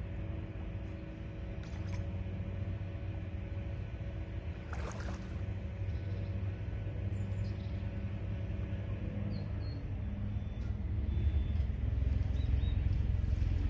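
Steady low rumble of wind on the microphone and water around a wading angler's boots, growing louder near the end, with a brief faint noise about five seconds in.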